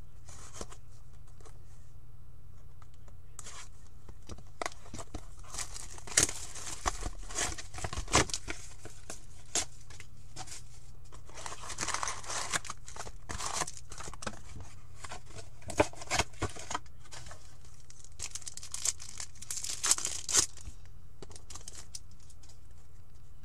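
O-Pee-Chee Platinum hockey card hobby box being torn open by hand and its foil wax packs pulled out and crinkled, in irregular bursts of tearing and rustling.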